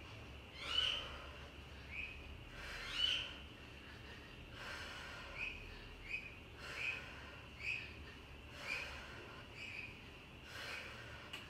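A woman's sharp, rhythmic exhalations during kettlebell swings, about one breath a second, each with a brief whistly edge: one forceful breath per swing.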